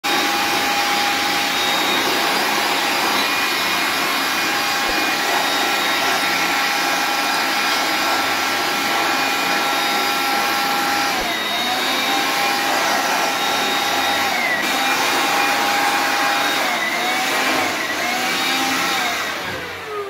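Handheld electric air blower running steadily as it blows dust out of an open fire alarm control panel. Its whine dips in pitch and recovers several times in the second half, then falls and fades near the end as the blower is switched off.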